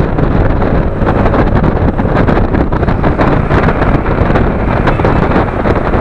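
Wind buffeting the microphone of a camera mounted on a moving motorcycle, a loud, steady rushing rumble with the bike's running noise underneath.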